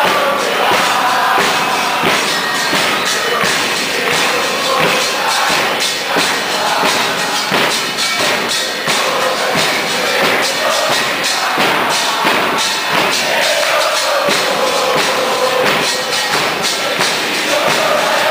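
A crowd of football supporters singing a chant together, loud and steady, with drums beating along.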